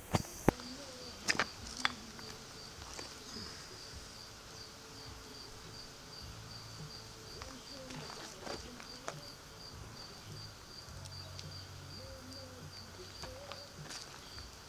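Insects chirping: a steady, evenly pulsed high-pitched chirp. A few sharp knocks stand out in the first two seconds and are the loudest sounds.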